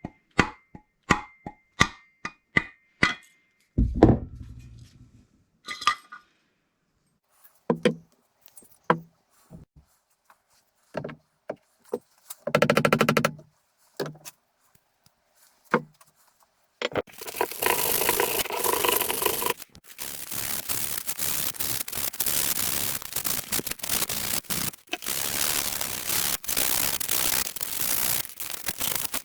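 Metal drill press parts being handled, with sharp clinks and knocks and a short buzz about halfway through. After that comes a steady hiss of paint being sprayed, in long bursts with brief breaks.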